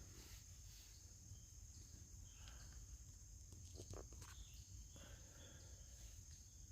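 Near silence: a faint, steady, high-pitched insect drone, with a few faint ticks.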